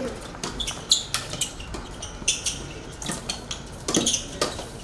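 Tennis shoes squeaking on the court during play: a string of short, high squeaks mixed with sharp knocks, the loudest knock about a second in.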